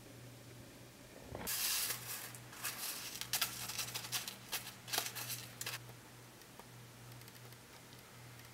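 Thin clear plastic candy-kit tray being handled, crinkling with sharp clicks for about four seconds from a second and a half in.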